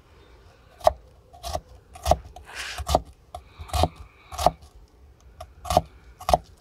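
Mora Bushcraft Black knife slicing through an onion and striking a wooden chopping board: about eight sharp knocks at an uneven pace, with a brief scrape of the blade in between.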